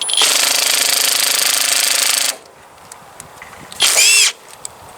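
Hercules impact driver hammering for about two seconds as it undoes a battery terminal fastener, then stopping suddenly, with a short second burst near the end.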